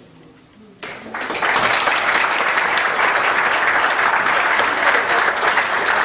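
Audience applauding: dense, loud clapping that breaks out suddenly about a second in and holds steady.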